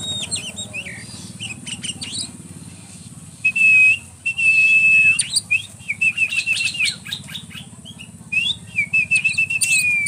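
Short bird chirps at first, then from about three and a half seconds in a person whistling: two long steady notes, then a run of short repeated whistled notes at the same pitch, with bird chirps in between.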